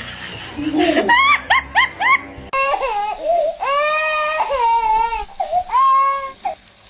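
A parrot imitating a crying baby: long, wavering wails. Before them comes a quick run of four short rising-and-falling calls.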